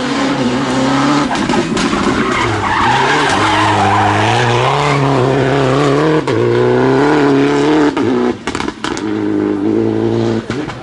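Citroën DS3 R3 rally car's four-cylinder engine pulling hard through tight bends, its pitch rising and falling with throttle and gear changes, with tyre skid noise. The engine note dips sharply about six seconds in and breaks up briefly a couple of times near the end.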